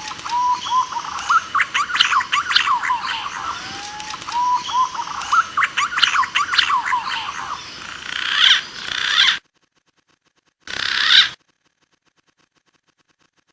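Lure recording of green pigeon (punai) calls: short rising whistled notes over a busy chatter of sharp chirps. It cuts off abruptly about nine seconds in, with one brief burst of the same calls a little later, then silence.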